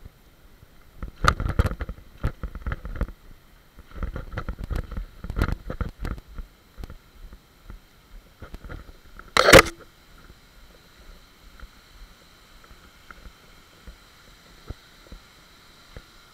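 Mountain bike rattling and clattering over a rough forest trail and wooden steps, with one loud sharp clatter about nine and a half seconds in. After that the riding sounds stop and only a faint steady background remains.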